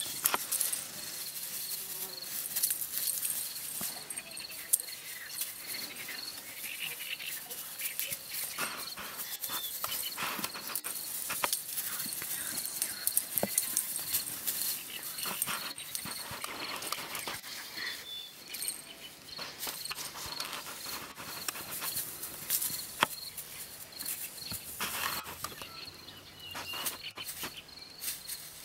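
Insects chirping steadily in an even, rapid high pulse, with irregular rustling of long grass and small knocks as cats dash and pounce through it.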